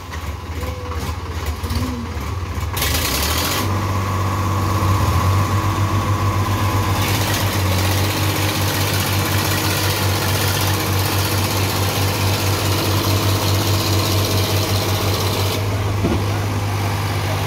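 Diesel tractor engines running hard under load, a steady pulsing rumble that gets louder about three and a half seconds in, as a tractor stuck in mud is towed out by a second tractor on a rope.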